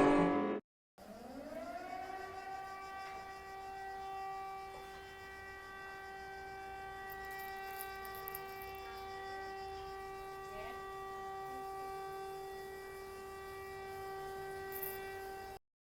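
A loud sound cuts off just after the start. Then a civil defense warning siren winds up over about a second to a steady tone, holds it, and cuts off suddenly near the end.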